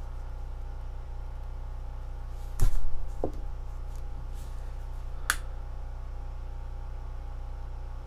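Steady low electrical hum under tabletop handling noise as paracord is worked by hand: a loud knock a little over two and a half seconds in, a smaller one just after, and a sharp click about five seconds in.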